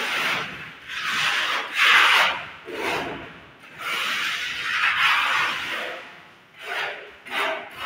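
A plastering float or trowel scraping and rubbing over fresh cement plaster on a wall, in a series of sweeping strokes each lasting about half a second to a second, with shorter, quicker strokes near the end.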